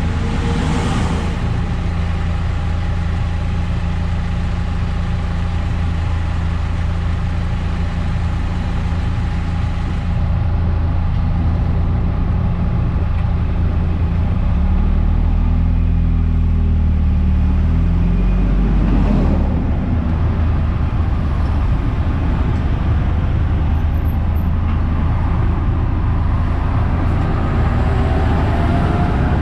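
A Eunos Roadster (Mazda MX-5) on the move: the engine drones steadily under road and tyre noise. About halfway through, the low engine note shifts and deepens for a few seconds before settling back.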